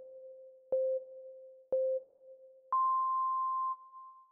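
Countdown timer beeps: short, lower beeps about a second apart, then about three seconds in a longer, higher beep that holds for about a second and fades out, signalling that time is up.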